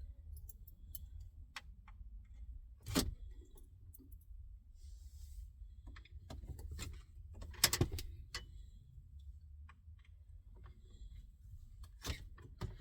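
Metal radio removal keys being pushed into the holes around a van's factory stereo, with faint metallic rattles and three sharp clicks as they go in: about three seconds in, near eight seconds, and just before the end.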